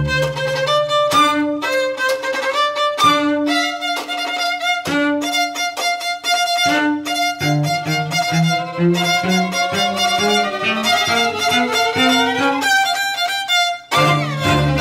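String trio of two violins and cello playing a pop cover, the violins carrying the tune in short, separated bowed notes. The cello's low notes drop out for stretches and come back. Near the end a run of notes climbs steadily, then after a brief break the full trio comes back in.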